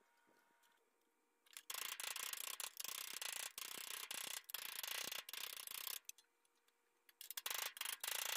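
Sheet-metal repair panel being worked in a bench vise: a stretch of rough scraping metal noise with short breaks, then a handful of separate sharp taps from a ball-peen hammer near the end.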